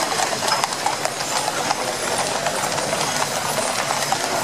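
Many horses' hooves clip-clopping on a tarmac road in a busy, overlapping clatter, together with the rolling of a horse-drawn artillery gun carriage's iron-tyred spoked wheels.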